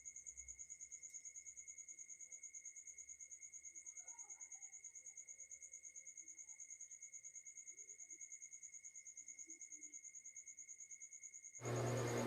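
A cricket trilling steadily: one high, fast, evenly pulsing note. A much louder sound cuts in just before the end.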